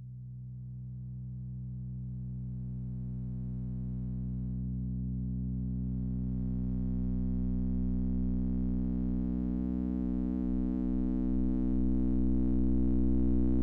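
Synthesizer drone music fading in: a steady low chord of held tones that grows slowly louder, with higher overtones gradually filling in.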